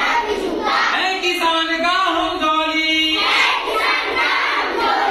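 A group of children singing a song together, with a held note a little past the middle.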